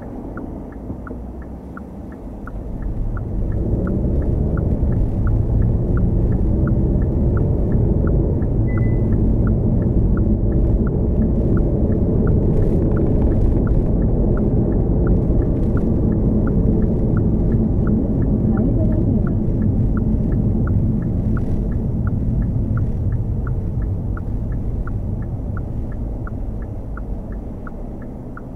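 Hyundai Kona Hybrid driving, its road and tyre noise a steady low rumble that grows louder about three seconds in as the car gathers speed and eases a little near the end. A light, regular tick repeats about twice a second throughout.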